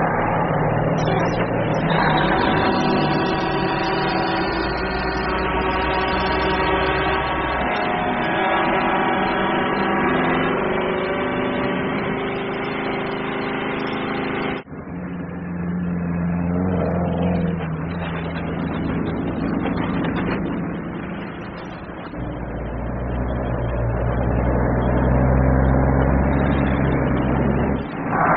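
Several semi-trucks' diesel engines rumbling while air horns blare together in a held chord. The horns cut off abruptly about halfway through; the engine rumble goes on, swelling again near the end.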